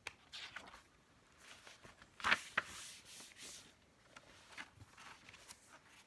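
Paper pages of a picture book rustling as it is handled, with soft scattered clicks and one sharper, louder rustle about two seconds in.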